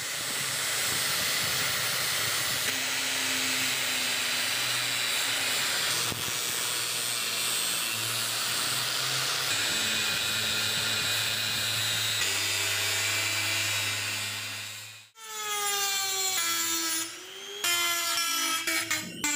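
An angle grinder's abrasive disc grinding into a steel hammer head held in a vise, a steady loud grinding that stops abruptly about fifteen seconds in.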